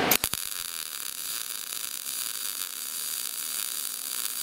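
Gas-shielded MIG welding arc in short-circuit transfer. It strikes with a few crackles, then settles into a steady, even sizzle. The wire speed is at the setting matched to the voltage.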